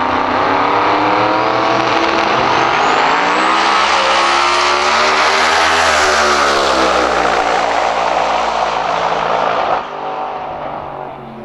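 Twin-turbo V8 drag-race Mustang at full throttle on a quarter-mile pass. Its engine note climbs as it comes toward the camera and past it, then drops as it pulls away, with a thin high whistle rising over it. The loud run cuts off suddenly near the end, leaving a quieter engine sound.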